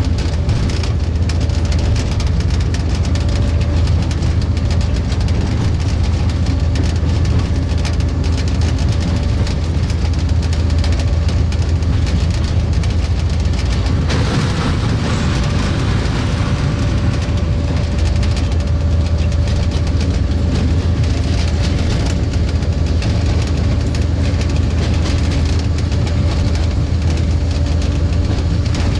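Diesel locomotive engine running steadily under load, heard from the cab, with wheels clicking on the rails. About halfway through there is a brief louder rushing hiss as the train crosses a short steel girder bridge.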